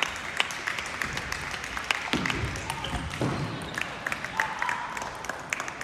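Table tennis balls clicking off bats and tables at many tables across a large hall, in an irregular scatter of sharp ticks.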